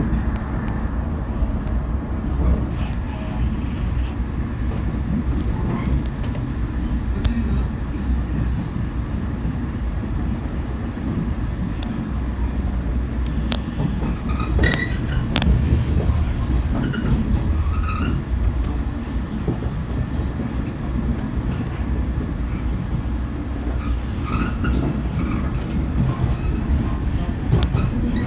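415-series electric multiple unit running on the line, heard from inside the front car as a steady low rumble, with a few sharp clicks about halfway through.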